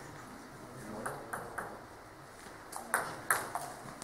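Table tennis ball clicking off the bats and the table: a few soft taps about a second in, then a fast rally of sharp clicks about three a second from around three seconds in.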